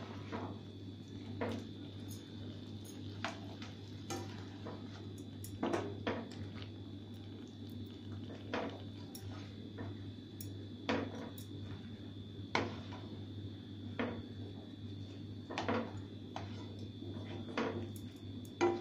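A spatula knocking and scraping against a metal cooking pan as boiled drumstick pods and potato pieces are scooped out onto a plate: a scattered series of short clinks and knocks, one every second or two, over a steady low hum.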